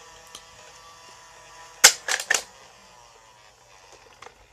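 Electric Nerf blaster: a faint motor whir that slides down in pitch as it winds down, with a quick cluster of sharp clacks about two seconds in.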